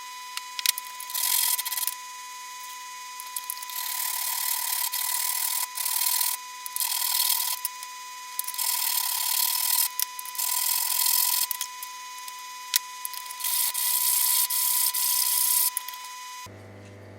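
Hand abrasion strokes, a file or sandpaper rubbing on a workpiece, in irregular passes of about a second or two with short pauses and a few sharp clicks between them. The strokes stop near the end.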